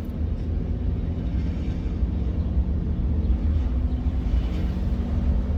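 Steady engine and road noise heard from inside a moving vehicle's cab: a low rumble with a constant hum.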